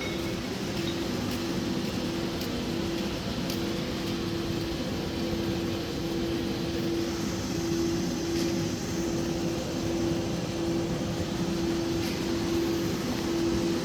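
Steady machine hum with a constant mid-pitched tone over even noise, the kind of background a fan or similar motor makes running in a workshop.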